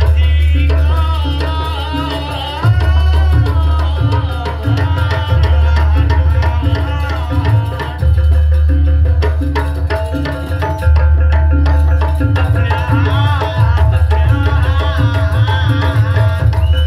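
Javanese jaranan music with hand-drum patterns over a deep bass and an evenly repeating mid-range note, and a wavering melody line above.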